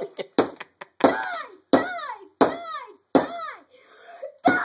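A hammer striking a Kyocera Loft cell phone on a workbench again and again: sharp knocks, quick at first and then about one every 0.7 seconds. Each knock is followed by a short shout that falls in pitch.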